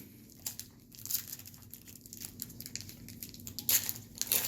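Trading cards and foil pack wrappers being handled: scattered light rustling and crinkling, with a couple of louder crinkles near the end.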